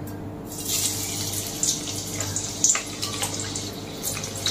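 Bitter gourd slices hitting hot oil and sizzling as they start to deep-fry. The sizzle starts about half a second in, with sharp crackles and pops through it.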